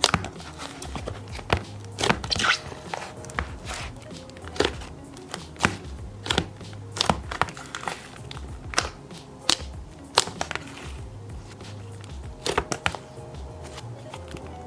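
Slime being squished and poked by hand, making irregular sticky pops and clicks, over background music.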